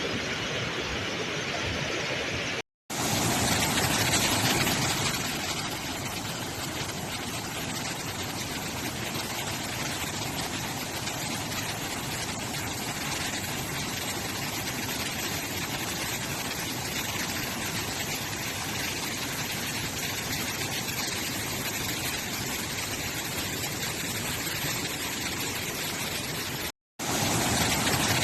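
Steady rush of Bogatha waterfall in swollen monsoon flow: an even, full-range roar of falling water, broken twice by a momentary silence.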